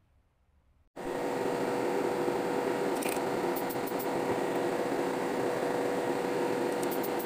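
Steady background hum and hiss, like a running fan, starting abruptly about a second in, with a few faint clicks in the middle and near the end.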